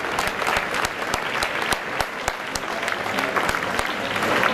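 Audience applauding: many hands clapping steadily at once.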